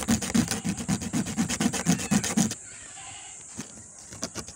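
A cut piece of pen being rubbed back and forth on sandpaper in quick strokes, about five a second. The strokes stop a little past halfway for about two seconds while the sandpaper is repositioned, and start again at the very end.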